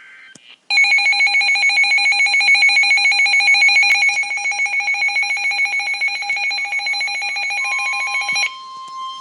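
Weather alert radio's alarm sounding a rapid, ringing trill of high tones for about eight seconds, then cutting off. Shortly before it stops, the NOAA Weather Radio warning tone, one steady high pitch, comes in underneath and holds.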